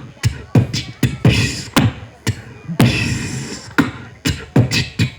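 A man beatboxing, turning the phrase 'biscotte, petite biscotte' into mouth percussion: a rhythmic pattern of sharp kick-like pops, clicks and hissing snare sounds, about two strikes a second.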